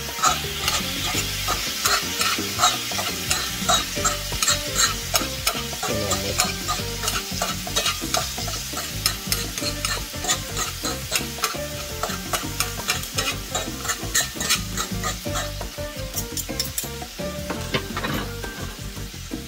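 Thin-sliced Steak-umm beef sizzling in a cast-iron skillet while a knife chops and scrapes through it in the pan, breaking up the slices, with many quick taps of metal on iron. The chopping stops shortly before the end, leaving the sizzle.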